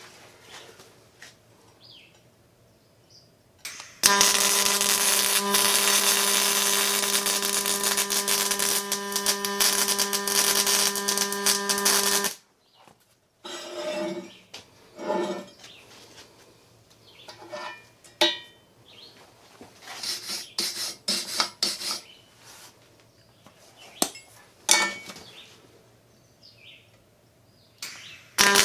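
MIG welding arc from a Miller Multimatic 255: a steady buzz that starts about four seconds in and cuts off abruptly about eight seconds later. The welder feels the wire feed speed is set a little too fast and the arc is running too hot. Afterwards come scattered clinks and taps of metal being handled, and the arc strikes again right at the end.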